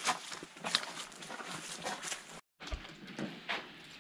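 A hiker's footsteps crunching on dry leaves and sand, an uneven step about every half second, with a brief break in the sound a little past halfway.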